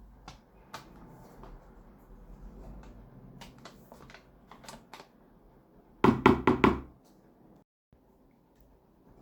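Kitchen handling sounds: scattered light clicks and taps, then a quick run of several loud knocks about six seconds in.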